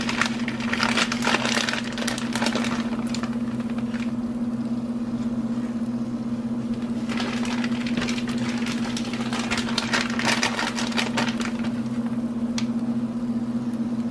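Shredded cheese being sprinkled by hand over scrambled eggs in a skillet: two stretches of crackling and rustling with small clicks, one at the start and one about halfway through. A steady low hum runs underneath throughout.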